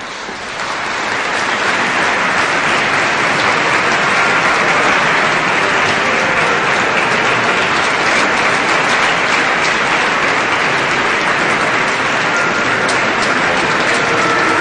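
Audience applauding: the clapping breaks out at once, swells over the first couple of seconds, then holds steady.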